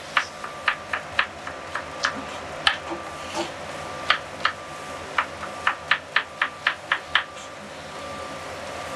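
Knife chopping a shallot on a cutting board: sharp separate taps, irregular at first, then quicker at about four a second, stopping shortly before the end.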